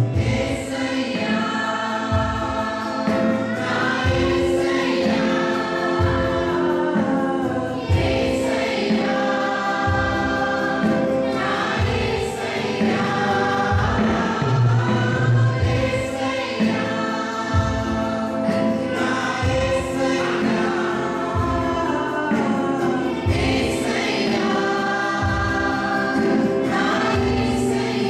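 Christian worship song sung by a choir with instrumental backing and a steady beat.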